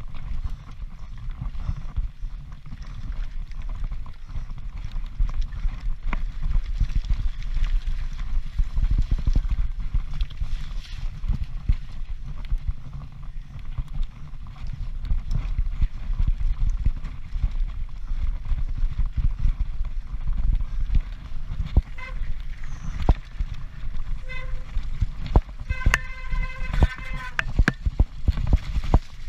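Mountain bike descending rough ground, its frame and drivetrain rattling and clattering under a constant low rumble of wind buffeting the helmet camera's microphone. Near the end come a few short high-pitched calls, then a quick string of them.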